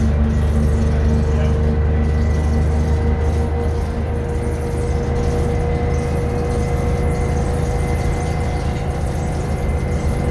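Detroit Diesel 6V71N two-stroke V6 diesel of a 1982 GM New Look bus running steadily as the bus drives along, heard from inside the cabin: a deep, continuous drone with a steady higher whine on top. The sound eases slightly about four seconds in.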